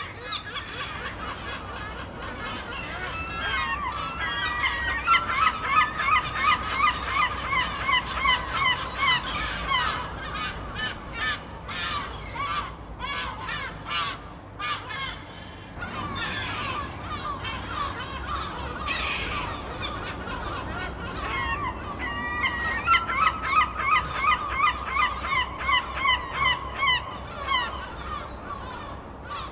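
Seagulls squawking, several birds calling over one another. Twice a long run of quick repeated calls builds up, with scattered single squawks in between.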